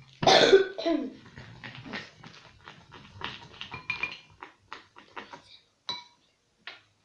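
Children's voices, a short loud exclamation at the start and then unclear low murmuring, with scattered small clicks and taps, a few of them briefly ringing, from utensils and containers being handled.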